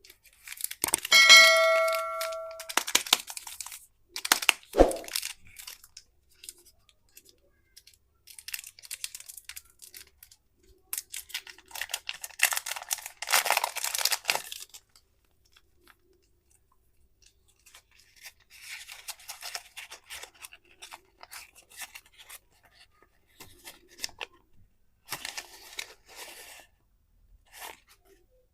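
Candy wrappers being torn open and crinkled in several separate bursts. A short ringing ding sounds about a second in.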